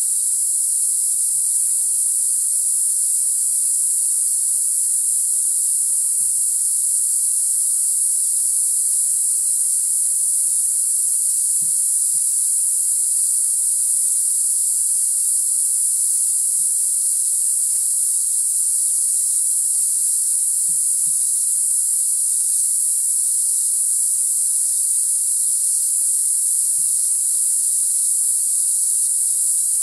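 Jungle insect chorus: a loud, steady, high-pitched hiss of countless insects calling together, unchanging throughout.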